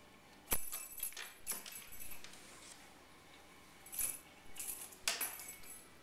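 A small cat toy dangling on a string from a cabinet door knob, jingling and knocking against the wooden door as a cat paws at it. It comes in several quick bursts, the loudest about half a second in and about five seconds in.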